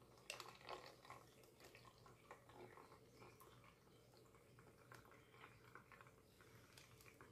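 Faint pouring of thick blended vegetable juice from a blender jar through a wire-mesh strainer into a plastic jug, with small drips and ticks that are busiest about a second in. A low steady hum runs underneath.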